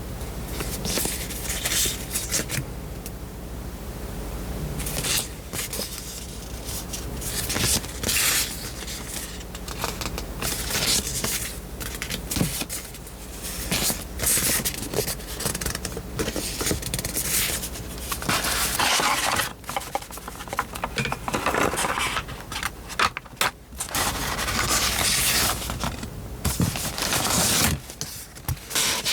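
Paper and plastic rustling and scraping in irregular bursts as packs of die-cut stickers are handled and shuffled by hand.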